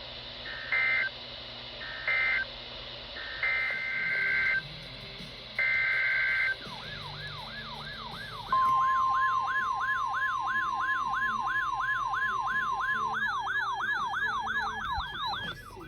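Emergency Alert System data bursts: four short, harsh electronic screeches. Then a siren-like tone sweeping up and down about twice a second, joined about halfway by a steady single-pitch attention tone, with a second, higher sweeping tone coming in near the end.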